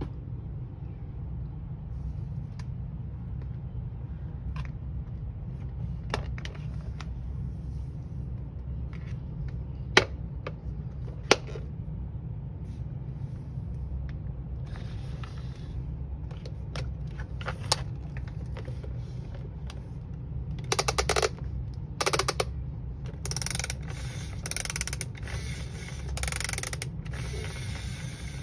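Plastic parts of a Fisher-Price Octonauts Gup-A toy submarine being handled: scattered clicks and two sharp snaps, then a ratcheting mechanism worked in repeated bursts during the last several seconds. A steady low hum runs underneath.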